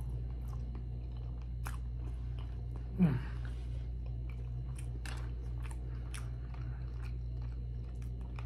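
Close-miked chewing of a bite of glazed grilled eel: wet mouth clicks and smacks scattered throughout. About three seconds in comes a short hum that falls in pitch.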